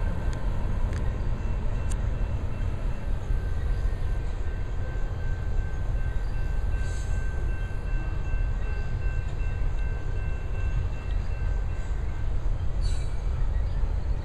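Loaded coal cars of a freight train rolling over a steel railroad bridge: a steady heavy rumble, with a thin high whine held through most of the middle.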